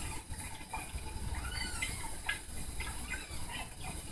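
Newborn kitten mewing, several short, thin cries.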